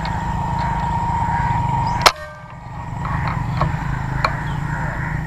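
A single sharp shot from a scoped rifle about two seconds in, over a steady low background rumble.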